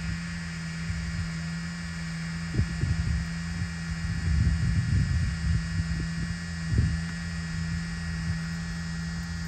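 Drone propellers and motors humming steadily at one pitch, with low rumbling gusts of wind buffeting the microphone from about two and a half to seven seconds in.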